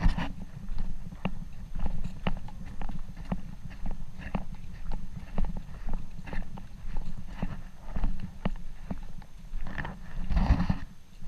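Footsteps at a steady walking pace, about two a second, over a constant low rumble. Near the end there is a louder rustle.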